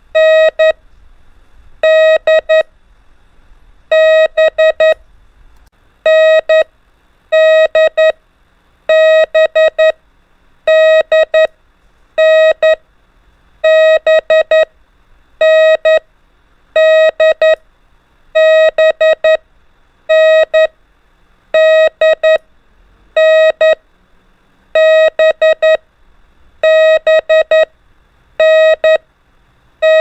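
Morse code (CW) practice tone: a single steady beeping pitch keyed on and off in dashes and dots, sending the letters N, D and B over and over in short groups about every two seconds.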